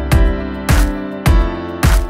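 Background music with a steady beat, a little under two beats a second over sustained chords.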